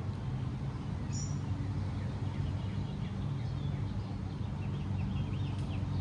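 Steady low rumble with faint chirps of small birds above it: one sharp high chirp about a second in, then a scatter of quick chirps in the second half.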